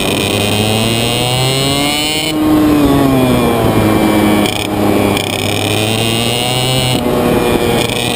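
IAME Reedster KF1 125 cc two-stroke kart engine running hard, its pitch climbing and dropping several times as the throttle is worked. The loudest stretch comes a few seconds in, with sharp drops in pitch about four and a half and seven seconds in.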